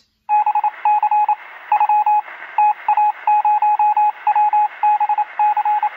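Telephone-line connection tones: loud short electronic beeps at two fixed pitches, in quick groups of two to five, over a steady line hiss. It is a sign of a connection attempt that is not getting through.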